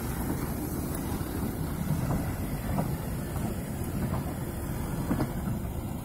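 Coupled steam locomotives OKz32-2 and 477-013 rolling slowly away on the track: a low rumble with a few faint knocks, mixed with wind buffeting the microphone.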